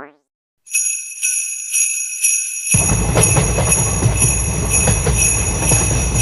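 Japanese railway level-crossing warning bell ringing in even strokes, about two a second. About three seconds in, a deep rumble joins under it, a train passing the crossing.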